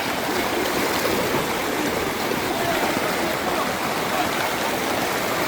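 Steady rush of surf and water at the shoreline, with faint distant voices calling.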